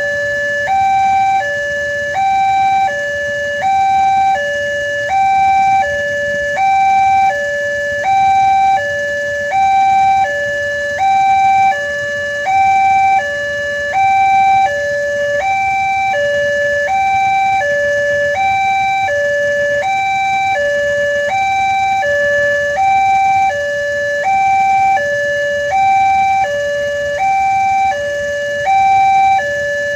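Indonesian railway level-crossing alarm sounding: an electronic warning that alternates steadily between a higher and a lower tone, one high-low pair about every second and a half, signalling that a train is approaching and the barriers are closed.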